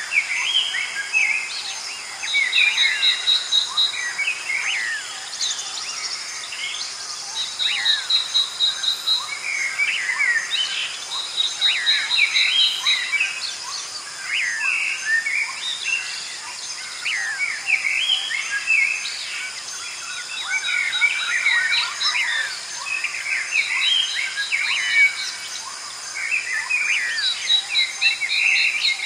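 A chorus of many small songbirds chirping and twittering over one another, with a short rapid trill repeating every few seconds and a steady high-pitched whine behind it.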